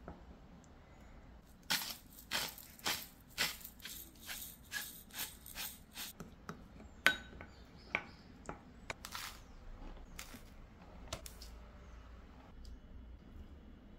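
Hand-twisted pepper grinder cracking peppercorns: a run of about ten crunching turns, roughly two a second, from about two seconds in to about six seconds. A few separate clicks and taps follow.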